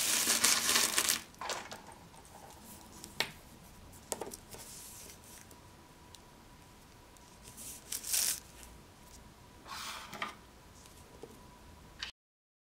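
Small pebbles being set down on a sheet of paper by hand: a rustle of the paper being handled in the first second, a few light clicks of stone on paper, and more rustles about 8 and 10 seconds in. The sound cuts off abruptly shortly before the end.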